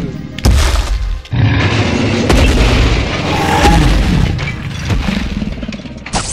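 A series of heavy booms and crashes, dubbed-in destruction sound effects for a giant ogre toy smashing a toy town, over background music.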